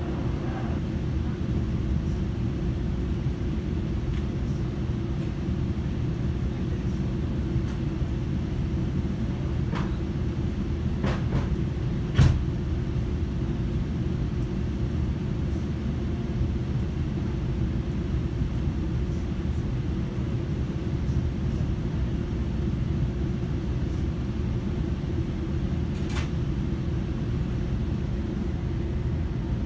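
Steady low rumble inside a GO Transit commuter train coach, with a few faint clicks and one sharp knock about twelve seconds in.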